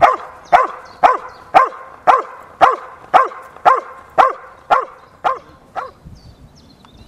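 A Dobermann barks steadily at a helper holding a bite sleeve, about two sharp, evenly spaced barks a second: the guarding bark of a protection-work bark-and-hold. The barking stops about six seconds in.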